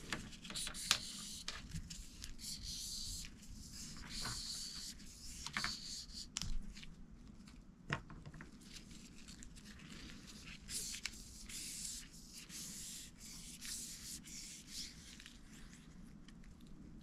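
Nitrile-gloved hands handling a hydraulic brake hose and its small fittings: faint, intermittent rubbing and rustling with a few light clicks.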